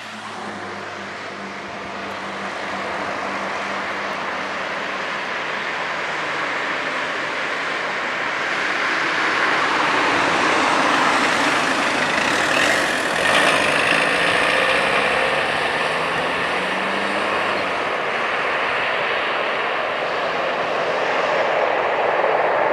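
Jet engine noise from a Boeing 737-400's two CFM56 turbofans at takeoff power during the takeoff roll, growing steadily louder as the airliner speeds down the runway toward the listener.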